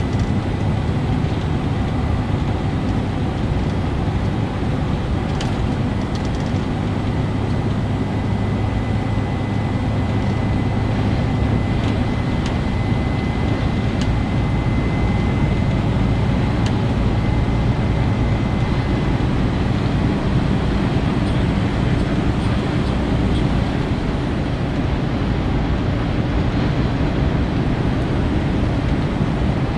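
Cab noise of a DAF XG+ truck cruising at steady speed: a constant low engine drone under tyre and road rumble, with a faint high whine for the first part.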